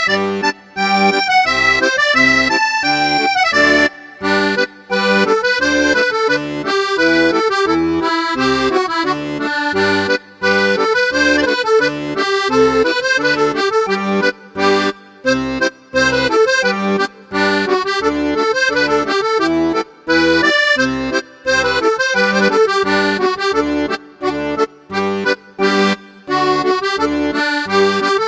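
Background music led by an accordion, with a steady bouncing rhythm and a repeating bass.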